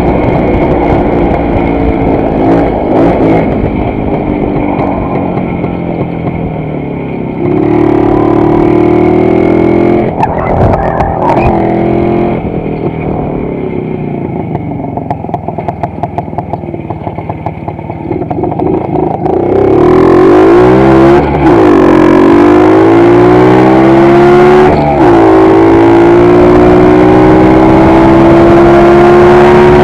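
WSK 125's two-stroke single-cylinder engine under way. It pulls loud at about seven seconds, eases off and runs quieter for several seconds, then opens up again from about two-thirds through, its pitch climbing, dropping briefly twice and climbing again.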